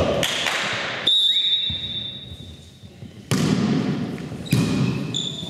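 A referee's whistle blown once about a second in, one long high tone ringing in the sports hall, the signal for the serve. About four and a half seconds in comes a sharp smack of a volleyball being struck.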